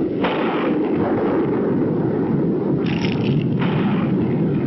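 Cartoon sound effect of an old brick chimney collapsing: a continuous heavy rumble, with louder crashing bursts about a quarter second in and again around three seconds in.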